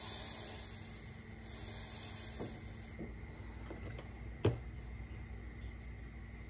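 Olive oil poured from a bottle into a warm non-stick frying pan, a high hiss in two spells over the first three seconds. A few faint ticks follow, then one sharp click about four and a half seconds in.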